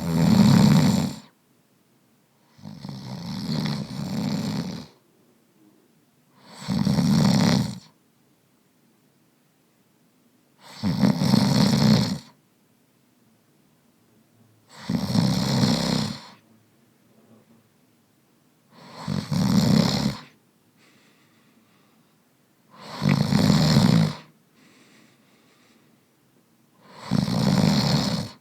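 A man snoring, with eight loud snores about every four seconds, each lasting a second or so, and quiet in between. The second snore is longer and softer than the rest.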